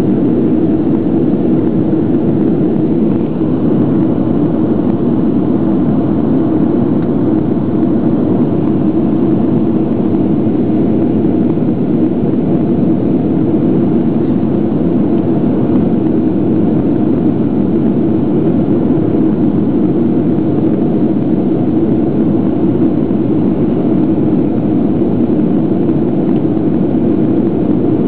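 Steady cabin noise of a Boeing 737-500 in flight, heard from a window seat over the wing: the even drone of its CFM56-3 turbofan engines and the rush of air past the fuselage, with a low hum at its core.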